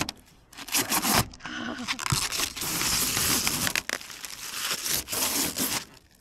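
Thin protective plastic film being peeled off the lid of a new roof vent fan: crinkling and tearing plastic, a few crackles at first, then near-continuous crackling through the middle that falls away near the end.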